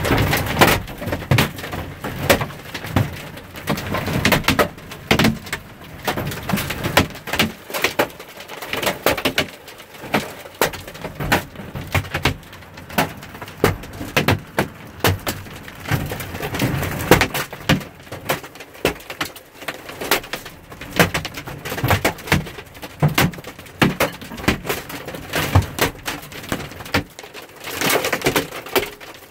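Hailstones striking hard surfaces in a heavy hail storm: a dense, irregular clatter of many impacts, some sharper and louder than others.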